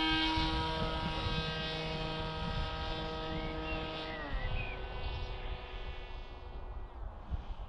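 Brushless electric motor (3548 1100KV) spinning a 12x6 propeller on a Zeta FX79 Buffalo flying wing: a steady droning whine that fades as the plane flies away. About four seconds in the pitch drops as the throttle is eased back.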